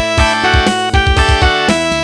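Siemens CX70 polyphonic ringtone playing: a synthesized tune with a melody over a steady drum beat.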